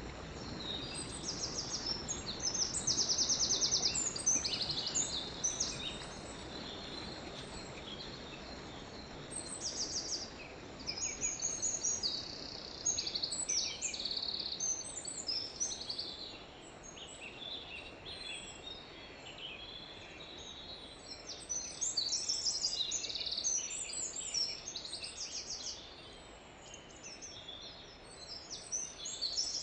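Forest birds chirping and singing throughout, with short high calls and fast trills that overlap, over a faint steady rush of a stream.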